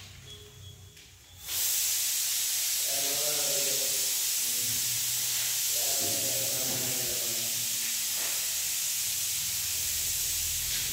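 A loud, steady hiss starts abruptly about a second and a half in and runs on unchanged, with faint voices underneath.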